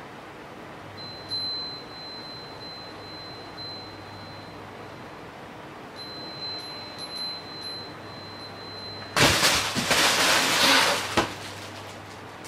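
Crinkle-fabric cat tunnel toy rustling loudly for about two seconds, starting about nine seconds in, as a cat scrambles into it. Before that a faint steady high ringing tone comes and goes.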